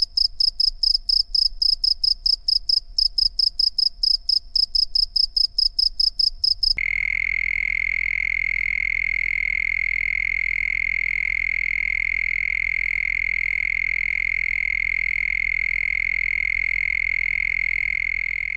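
Cricket chirping in rapid, high-pitched pulses, about four or five a second. About seven seconds in it cuts abruptly to a different recording: a lower, steady, unbroken trill.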